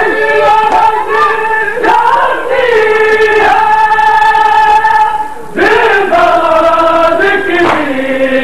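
A crowd of men chanting a noha, a Shia mourning lament, in long drawn-out notes, with a short break about five and a half seconds in.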